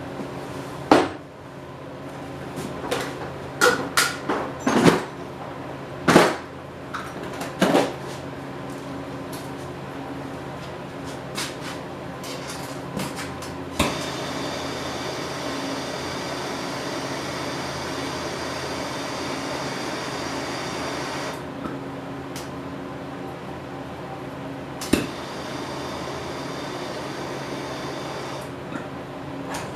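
Sharp clinks and knocks of tools and small metal parts being handled during soldering of a clutch cable end, clustered in the first eight seconds. About fourteen seconds in, a steady hiss starts with a click and runs for about seven seconds before cutting off, all over a constant low hum.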